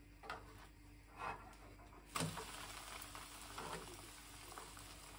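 A pancake frying in a pan: a few soft spatula scrapes, then a sharp clack about two seconds in, after which a steady sizzle goes on.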